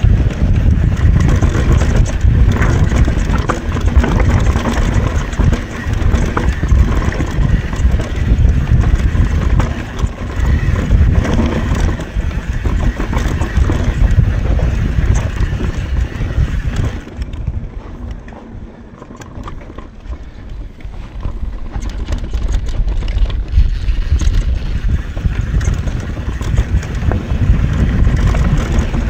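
Mountain bike descending a rough trail at speed: tyres rumbling over dirt and rocks, the frame and drivetrain rattling, and wind buffeting the microphone. It eases off for a few seconds past the middle, then picks up again.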